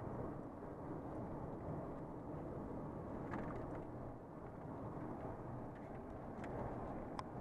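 A vehicle driving along at speed, a steady hum of engine and road noise, with a few faint ticks.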